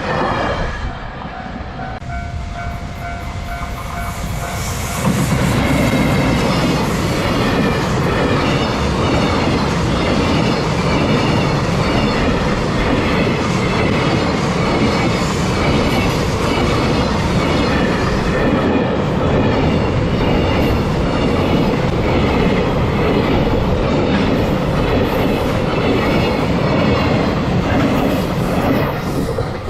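Freight train hauled by an EF210 electric locomotive passing over a level crossing: its wagons clatter loudly and rhythmically over the rail joints from about five seconds in until the end. Before the train arrives, the crossing's warning bell is heard ringing steadily.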